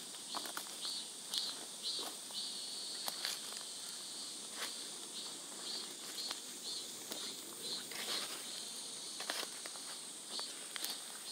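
Insects calling in grass: a steady high buzz, with a second insect chirping in regular pulses about three times a second. Scattered clicks and rustles of dry stalks and grass sound over them.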